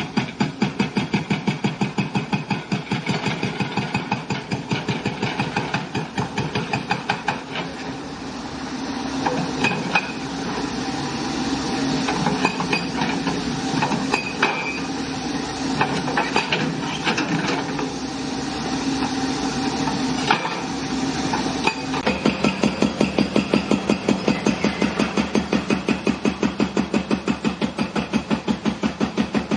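Excavator-mounted hydraulic breaker hammering a concrete column: a fast, regular stream of blows. From about eight seconds in it turns into a denser, more continuous clatter with scattered sharp knocks. About twenty-two seconds in the steady rapid blows return.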